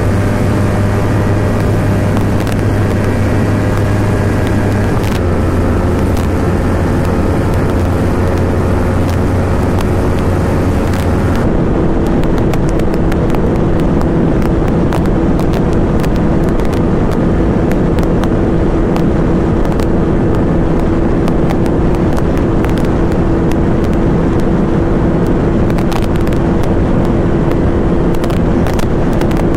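Sport motorcycles running flat out at about 165–175 km/h, engine held at high revs in top gear under heavy wind rush. The Yamaha R3's 321cc parallel-twin comes first. About a third of the way in the sound switches abruptly to the KTM RC 390's 373cc single-cylinder, with a different steady note and less hiss.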